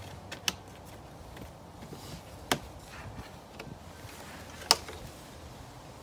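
Three sharp plastic clicks about two seconds apart, the last the loudest, over a low steady background rumble: the plastic ignition-coil cover on a BMW M54 inline-six being pressed and snapped back into place.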